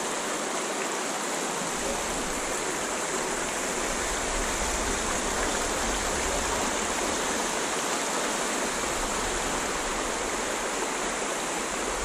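Shallow rocky river running over stones and small rapids: a steady rushing of water.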